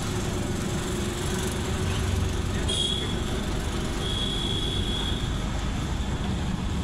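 Steady low rumble of street traffic with two high-pitched squeals: a short one about three seconds in and a longer one about a second later.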